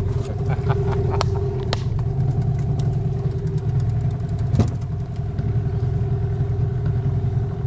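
Boat outboard motor running steadily, a constant low engine hum. A few sharp knocks sound over it, the loudest about four and a half seconds in.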